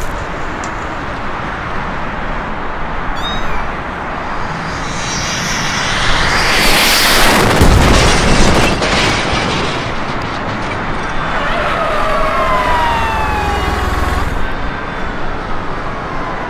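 Jet airliner engine roar, then a loud crash and boom about halfway through as the Boeing 747 goes off the runway, followed by several falling whines over a low rumble.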